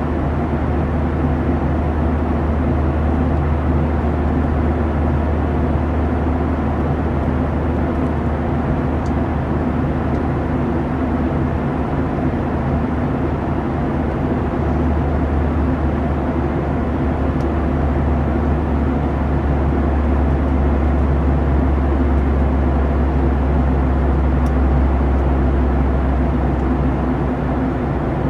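Steady rumble of a Boeing 737-900ER in flight, its CFM56 engines and airflow heard from inside the cabin; the deep rumble grows heavier about halfway.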